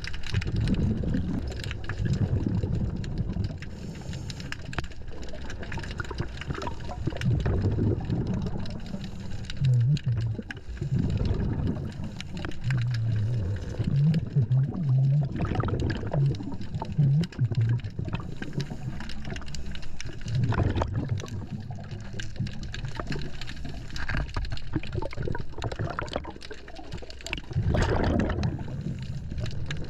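Scuba diver breathing through a regulator, heard underwater: exhaled bubbles gurgle up every few seconds over a steady low rumble.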